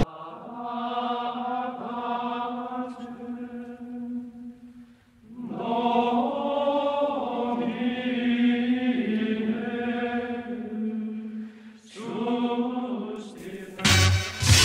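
Music track of chanting voices: long held notes on one steady low pitch, sung in phrases with short breaks about five and twelve seconds in. A short, louder noisy sound comes near the end.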